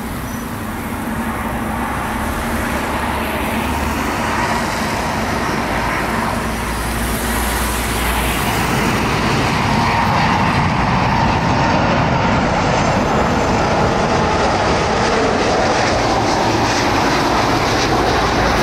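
Jet engines of a twin-engine Airbus widebody airliner on final approach to land, a steady rumble with a faint whine that grows louder as the jet comes low overhead.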